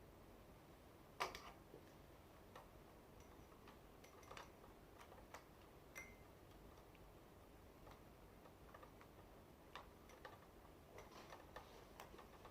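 Faint, irregular clicks and taps of ring light and stand parts being handled, with one sharper knock about a second in and a cluster of small clicks near the end.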